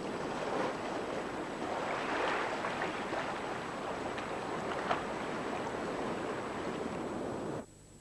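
Sea surf surging and washing over rocks: a steady rushing noise that cuts off abruptly near the end.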